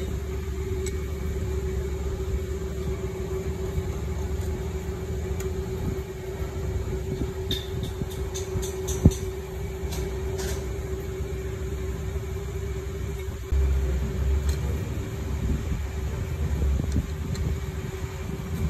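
Steady low machinery rumble with a constant hum, and scattered light metallic clicks and taps of hand tools on the engine's camshaft timing pulley, one sharp click about nine seconds in. The low rumble steps up a little about two-thirds of the way through.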